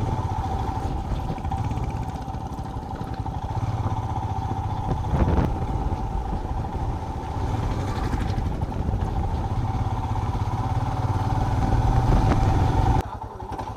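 Royal Enfield Himalayan's single-cylinder engine running while the motorcycle is ridden along the road. The sound drops abruptly near the end.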